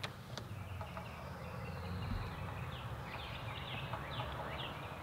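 Songbirds chirping, a run of short notes that each fall in pitch, clustered in the second half, over a low steady rumble of outdoor background noise.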